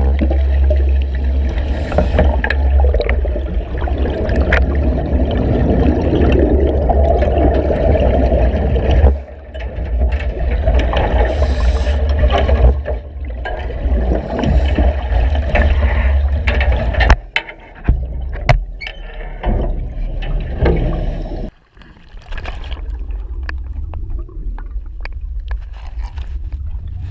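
Underwater sound picked up through a camera housing in a submerged escape-training cage: a heavy low rumble with the bubbling and gurgling of air streaming up through the water, and scattered knocks and scrapes as people move against the cage. The sound changes abruptly several times, about 9, 17 and 21 seconds in.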